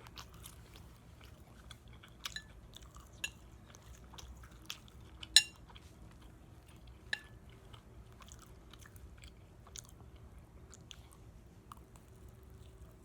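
Close-up chewing of syrupy pancakes: soft, wet mouth clicks scattered through, with one sharp click about five seconds in.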